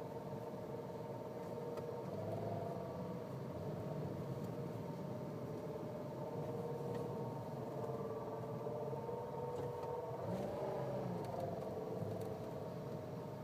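Nissan Cube's CVT giving off an abnormal whine while the car runs: several steady tones sounding together over a low rumble, shifting slightly in pitch a few times. The noise came on suddenly and marks a CVT fault.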